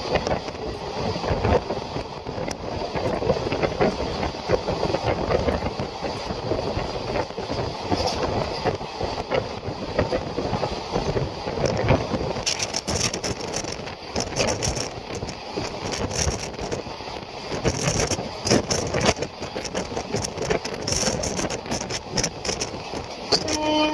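Passenger coach of an express train running at speed, heard at an open window: steady wheel-on-rail rumble, coach rattle and wind, with sharper clicking and clatter from the wheels and running gear from about halfway. A horn starts sounding right at the end.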